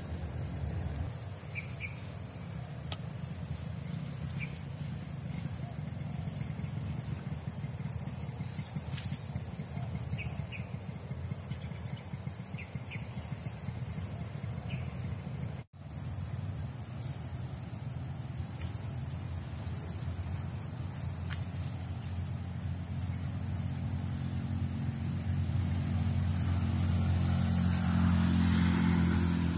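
Outdoor ambience dominated by a steady low motor-vehicle rumble that grows louder near the end, with a few short bird chirps in the first half and a constant high-pitched hiss.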